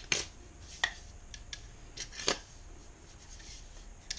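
A handheld deburring tool's carbide blade scraping around the cut edge of a PVC pipe, chamfering it in a series of short scraping strokes. The loudest stroke comes a little after two seconds in.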